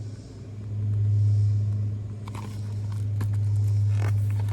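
A steady low hum, swelling louder about a second in and again near the end, with a few soft clicks and a brief paper rustle of a book page being turned.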